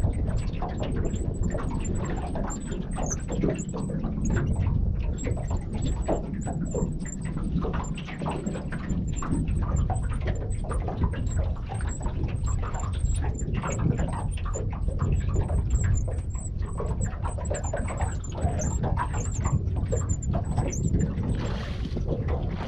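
Wind rumbling on the microphone and water slapping against the hull of an aluminium dinghy, with many small knocks and clicks throughout and faint high chirps that stop shortly before the end.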